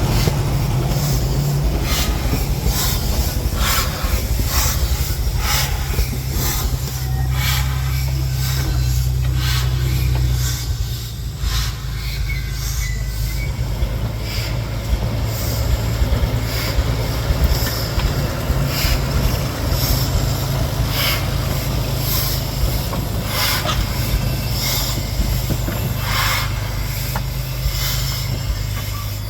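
Small diesel switching locomotive running with a steady low engine drone as it moves a narrow-gauge steam locomotive slowly along the rails, with repeated clanks and clicks from wheels and couplings and a brief wheel squeal about twelve seconds in.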